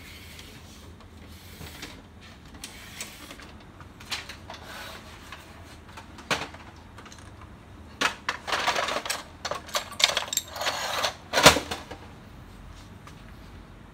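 HP LaserJet P3015 laser printer's mechanism clattering and clicking in irregular bursts, with faint scattered clicks at first and a busier stretch in the last third, ending in the sharpest click.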